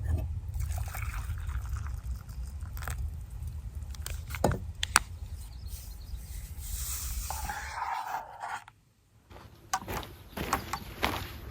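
Scattered knocks, clicks and scrapes of camping gear being handled, over a low rumble that drops out about eight seconds in.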